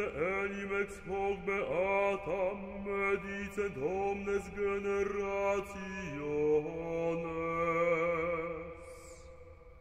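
Background music: a solo voice chanting an ornamented, gliding melody over a steady low drone. About six seconds in it settles on a long held note that fades away.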